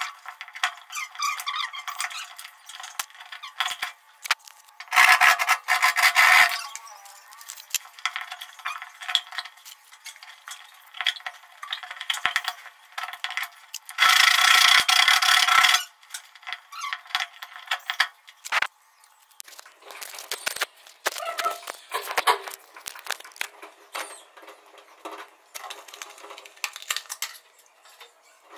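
Handling noise of a plastic LED panel light and its wiring being worked by hand: rubbing, scraping and many small clicks, with two louder scraping stretches of a second or two, about five and fourteen seconds in.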